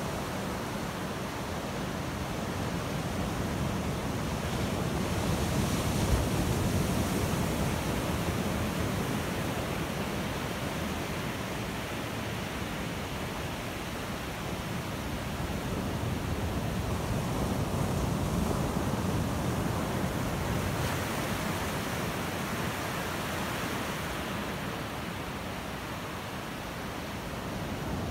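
Ocean surf breaking and washing up a beach, a steady rush of water that swells louder twice.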